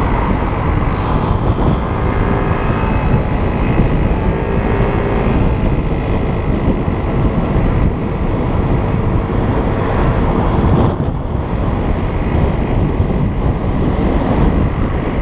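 Wind buffeting the microphone of a moped at riding speed, over the small moped engine running steadily.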